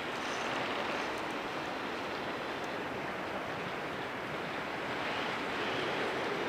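Steady rushing noise with no distinct knocks or shots: wind on an action camera's microphone.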